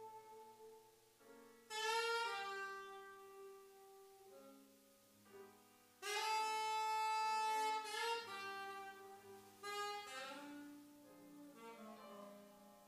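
Saxophone playing a slow melody of long held notes over grand piano accompaniment. The loudest note comes in about six seconds in and is held for about two seconds.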